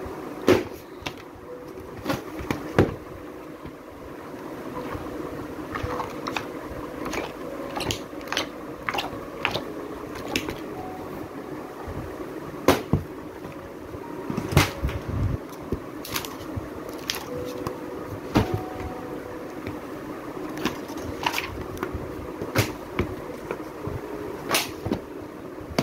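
Children's books and a DVD case being handled in a cardboard box: irregular knocks, taps and thuds of books and covers against the box and each other, a few of them much louder, over a steady low hum.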